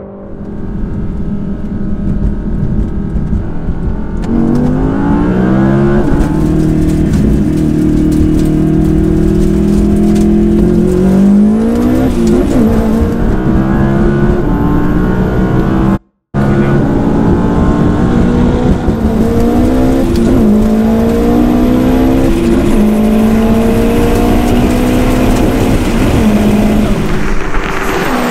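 Sports car engine at full throttle, its revs climbing and then dropping back at each of several quick upshifts as it accelerates through the gears. The sound breaks off for a moment about 16 seconds in.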